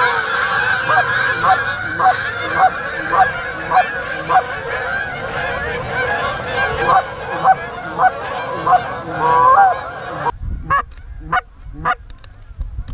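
A large flock of Canada geese in flight honking: a dense, continuous chorus with louder single honks standing out about twice a second. About ten seconds in the chorus cuts off abruptly, leaving only a few separate honks.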